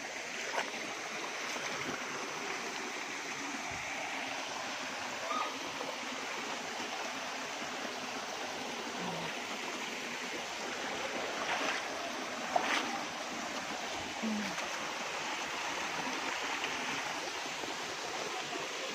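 Steady rushing of a rocky mountain stream with a small waterfall. A couple of sharp knocks come about two-thirds of the way through.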